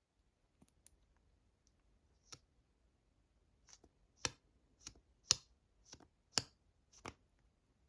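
Tapping on travel cosmetics containers for ASMR: a few faint clicks at first, then about eight sharp, irregularly spaced taps, louder in the second half.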